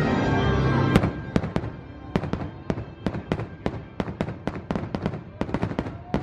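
Music for about the first second, then a loud crack followed by a rapid string of sharp firework bangs and pops, several a second, from aerial shells bursting overhead.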